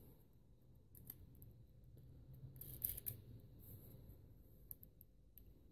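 Faint clicks and light knocks of hard 3D-printed plastic parts being handled and fitted together on their screws, loudest in a cluster about three seconds in.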